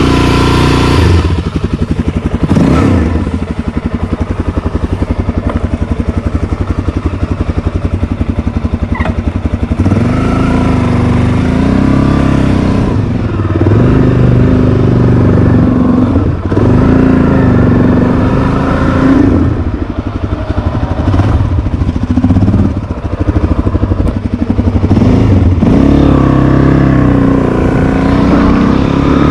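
Motorcycle engine idling with an even pulse and a brief rev near the start, then pulling away and accelerating, the revs rising and dropping again and again as it shifts up through the gears.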